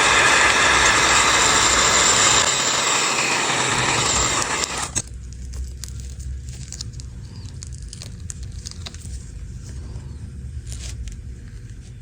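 A powered air tool running with a steady, loud rushing noise that cuts off suddenly about five seconds in, followed by quieter small clicks and handling of the device on the bench.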